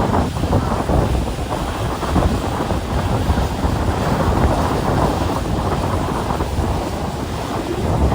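Wind buffeting the microphone: a loud, uneven rushing rumble, with no clear engine tone standing out.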